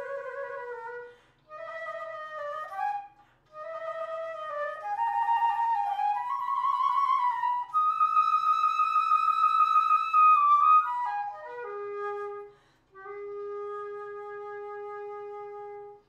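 Solo flute playing a slow melody in short phrases with brief breaks between them, rising to a long high note midway and closing on a long held low note that stops cleanly near the end.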